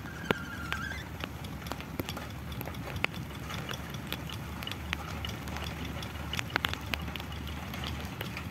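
Two-wheel hand tractor's single-cylinder diesel engine running with a steady low chug, heard from a distance, under irregular sharp metallic clacks from its iron cage wheels rolling along a dirt track.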